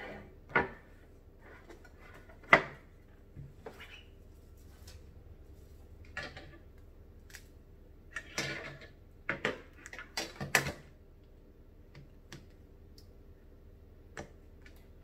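A Bible in a carrying cover being handled and set up on a wire book stand: scattered clicks, knocks and rustles. The sharpest click comes about two and a half seconds in, and a cluster of them from about eight to eleven seconds in.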